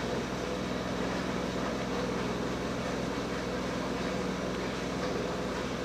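Homemade Bedini school girl pulse motor running steadily, a continuous mechanical drone with a steady low hum.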